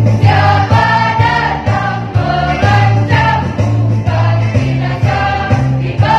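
A choir singing in several voices over an accompaniment with a bass line that changes note about every half second.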